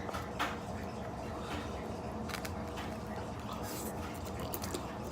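A person eating chow mein close to the microphone: chewing and biting with a few short, soft clicks, over a steady low background hum.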